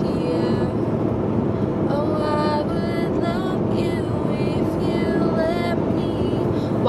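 Steady road and engine noise inside a car's cabin at highway speed, about 65 mph.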